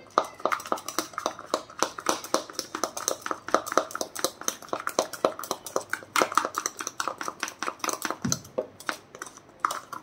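A metal spoon beating instant coffee, sugar and water in a ceramic mug by hand, clinking rapidly against the cup several times a second. The strokes slow and thin out near the end.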